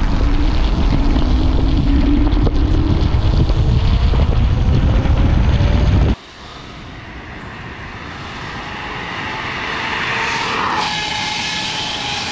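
Nami Burn-E 2 electric scooter's dual hub motors whining at a top-speed run, the whine rising steadily in pitch as it accelerates, under heavy wind noise on the microphone. About six seconds in, the wind noise cuts off abruptly; a quieter, higher motor whine carries on, climbing slightly and then easing off.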